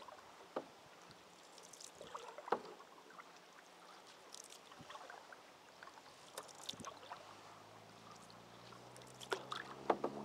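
Canoe paddling: quiet splashes and drips from the paddle strokes with scattered light knocks, a few sharper ones near the end. From about eight seconds in, a motor vehicle on a nearby road comes in as a low hum that grows louder.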